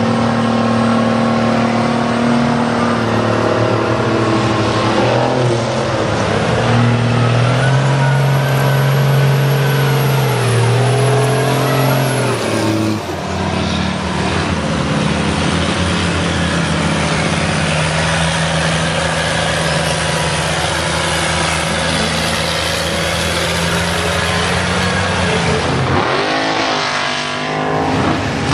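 Big engines of lifted mega mud trucks revving hard as they churn through deep mud, the engine pitch swinging up and down. The sound holds steadier through the middle, then revs up sharply near the end.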